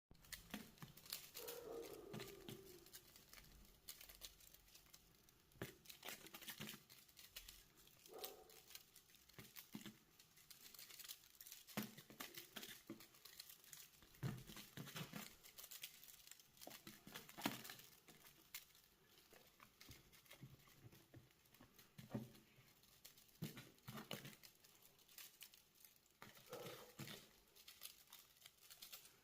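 Faint, irregular rustling, scratching and tapping of a young Maine Coon kitten moving about and pawing at things.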